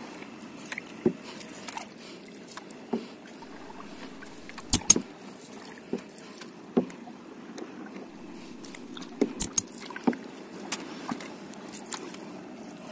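A small canoe being paddled: a steady swish of water, with the paddle knocking against the hull now and then. The loudest knocks are a close pair about five seconds in and a quick cluster near the end.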